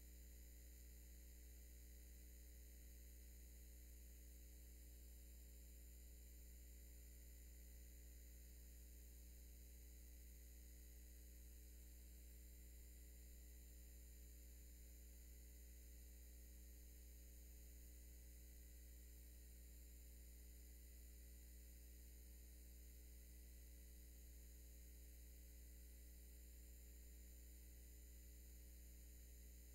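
Near silence: a faint, steady electrical hum, the same throughout.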